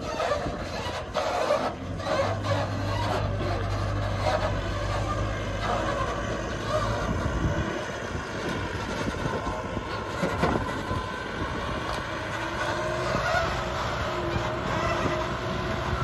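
Farm tractor's diesel engine running under load as it hauls a heavily loaded trailer of sacks over a rough dirt track, with a few knocks and rattles in the first couple of seconds. Its deep low hum is strong for the first seven seconds or so, then falls away as the tractor moves off.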